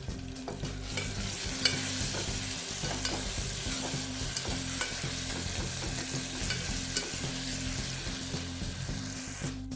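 Onion, tomato and curry leaves sizzling in oil in an aluminium pressure cooker, stirred with a spatula that clicks and scrapes against the pot. The sizzle swells about a second in and holds steady.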